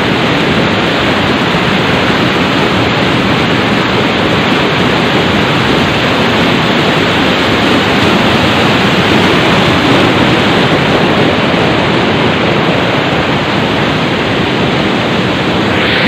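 Waterfall cascading down a sloping rock face: a loud, steady rush of white water.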